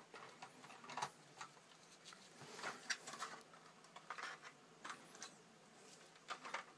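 Faint, irregular clicks and scratchy rustles of hands handling a plastic model tank, turning it over and gripping the hull.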